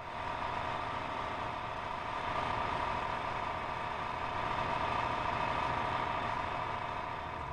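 Engine of a heavy military vehicle running steadily, a continuous drone that comes up quickly at the start and holds an even level.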